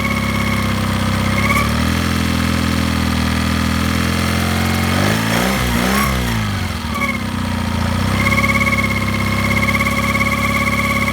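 Mercury 9.9 Pro Kicker four-stroke outboard running. At low rpm a pulsing whine hums over the engine. The hum drops out when the engine is sped up about two seconds in. The engine speed then sweeps down and up around the middle, and the hum returns once it settles back to low rpm near the end. The owner takes the hum for a bearing noise, cause unknown.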